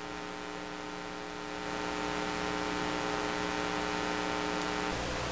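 Amplified preamp noise of a digital mixing console at +60 gain: a steady, buzzy 60-cycle hum with hiss over it. The hiss grows louder about a second and a half in, and a deeper hum comes in near the end.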